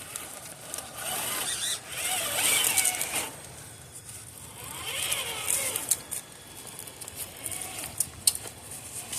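Traxxas TRX4 RC crawler's electric motor and drivetrain whining in two throttle bursts, the pitch rising and falling as it crawls, with sharp clicks and knocks of the truck on rock.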